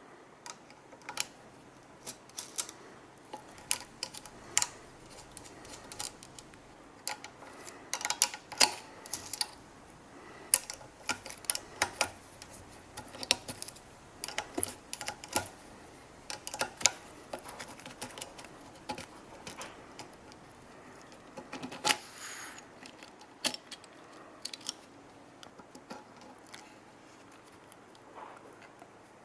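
Irregular metallic clicks, clinks and taps of hand tools and small parts being handled while working on a small air compressor's pressure switch.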